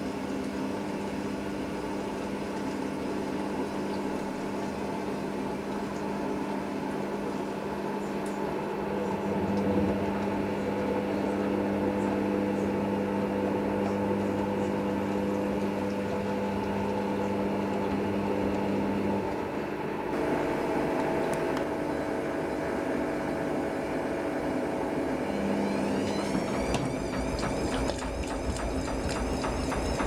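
Hoover Nextra front-load washing machine turning its drum of wet towels, the motor humming steadily. About four seconds before the end a rising, wavering motor whine sets in as the drum speeds up toward a 400 rpm spin.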